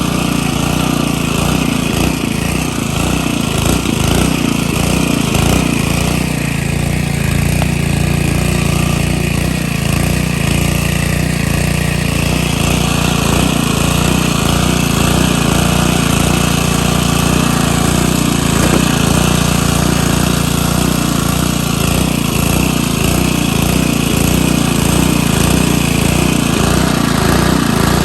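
Small gasoline engine running steadily at constant speed, with a rapid low pulsing.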